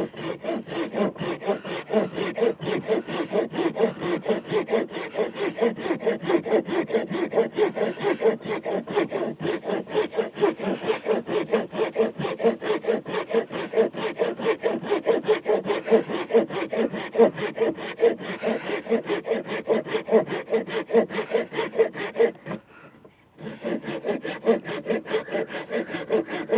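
Silky F180 fine-tooth folding saw cutting through a wooden stick in rapid, even back-and-forth strokes. The strokes pause for about a second a few seconds before the end, then start again. The blade is binding in the cut.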